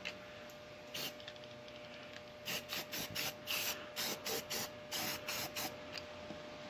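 Aerosol spray paint can spraying white paint in short hissing bursts: one about a second in, then a quick series of short bursts running for about three seconds.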